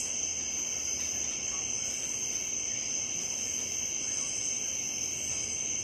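Night insect chorus, a steady high-pitched drone.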